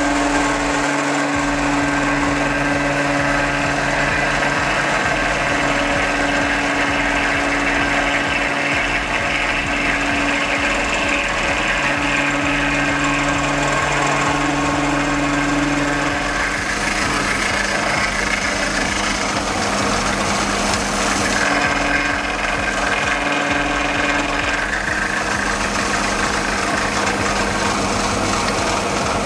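Milling machine running with its milling cutter taking a cut across a metal block: a steady machine whir with a humming tone. About halfway through, the tone changes and the machine runs on.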